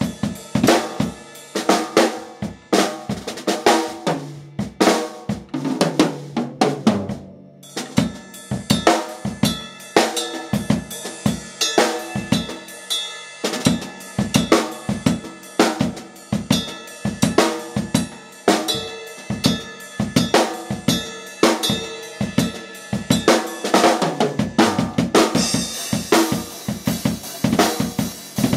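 Drum kit played fast and loud: snare, bass drum and cymbal hits in a dense run, with a short break about seven seconds in and a heavy cymbal wash over the last few seconds.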